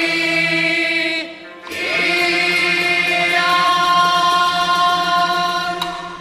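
Male Teochew opera singer drawing out a long sustained note over the opera orchestra's accompaniment. There is a short break about a second in, then one long held note that fades away near the end.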